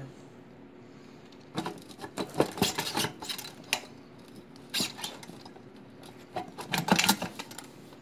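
Metal clinks and scrapes as a kerosene heater's wick and burner assembly is worked loose and lifted off the fuel tank. The rattles come in three bursts, the loudest near the end.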